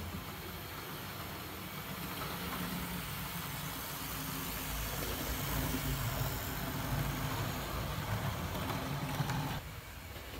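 OO gauge model train running on the track: the Hornby Class 91 model's motor hum and the rumble of the coaches' wheels, growing louder as the train passes and dropping away suddenly near the end.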